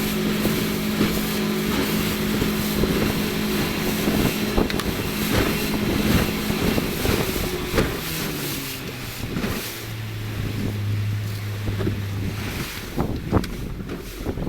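Small fishing boat's engine running steadily under way, then throttled down about eight seconds in to a lower, slower note. It drops away near the end, with a few knocks.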